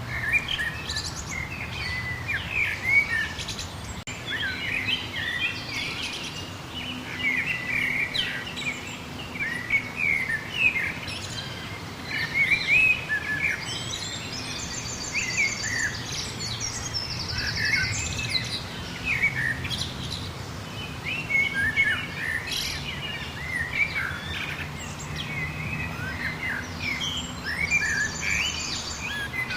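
Many birds singing and chirping at once, a dense overlapping chorus of short whistled notes and calls, with a few quick high trills of rapidly repeated notes mixed in.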